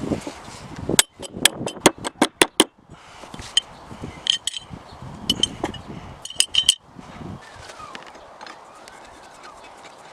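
Small metal parts clicking and clinking: a quick run of sharp clicks, then several ringing metallic clinks.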